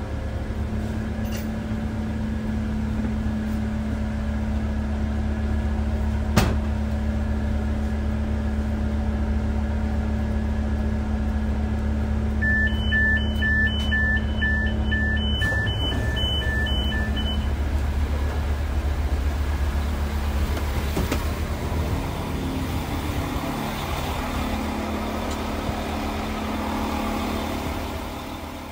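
Diesel engine of a Pesa Link railcar running with a steady hum, its note shifting about halfway through. A single sharp click comes about six seconds in, and a run of fast beeps alternating between two pitches lasts about five seconds near the middle. The sound fades out near the end.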